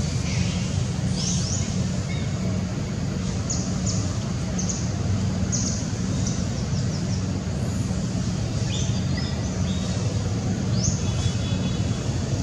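Many short, high chirps scattered over a steady low engine-like hum.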